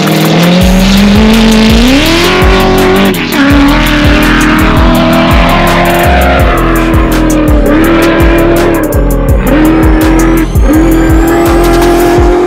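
Dune buggy's 5.3-litre LS V8 revving hard on a dune climb, its pitch rising and dipping several times, mixed with music that has a steady drum beat.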